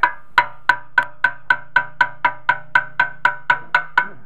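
Rapid, even hammer taps on a Mercedes-Benz 190SL engine's main bearing cap, about four a second, each with a short metallic ring. The cap is a tighter fit in its locating register on the block than it should be.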